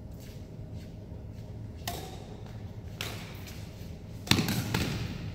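Badminton rally: three sharp hits of rackets on the shuttlecock and shoes on the court floor, the last and loudest about four seconds in, each echoing around the sports hall.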